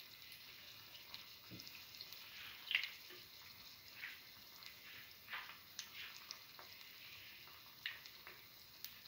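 Chickpea-flour-battered boiled egg frying in shallow oil in a pan: a faint, steady sizzle with scattered crackles and pops, the loudest a little under three seconds in.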